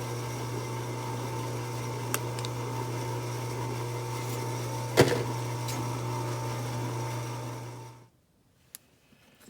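Drill press running steadily, spinning a HammerHead roll crimper as a shotgun hull is rolled down, with a low, even hum. A light click about two seconds in and a sharp knock about five seconds in; the hum cuts out about eight seconds in.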